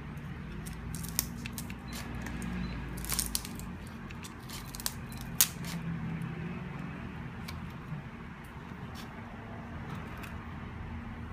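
Kitchen scissors snipping through cooked king crab shell, with scattered sharp crunching clicks as the shell gives way, a cluster about three seconds in and the loudest about five seconds in. A low steady hum runs underneath.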